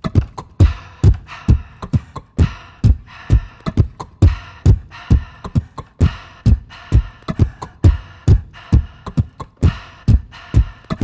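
Beatboxed rhythm running as a loop on a loop station: a steady, even beat of deep kick-drum thuds alternating with hissier snare sounds, made with the mouth.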